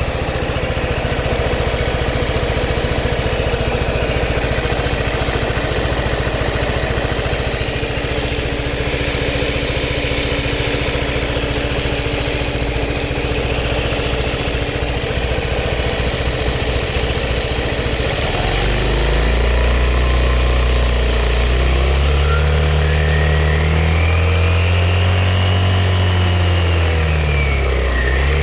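Suzuki Burgman scooter engine idling with a fast, even ticking noise. From about two-thirds of the way in, it is revved up and down several times.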